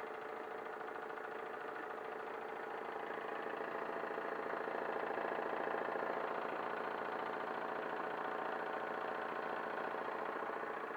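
Wilesco D21 model steam engine running steadily under load, turning a 3D-printed Baker fan, with a fast even chuffing and mechanical clatter. It gets a little louder around the middle.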